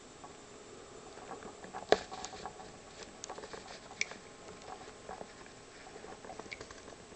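Cockatiel pecking and nibbling at a peeled hard-boiled egg: a run of small irregular beak clicks and taps, with a sharper click about two seconds in and another about four seconds in.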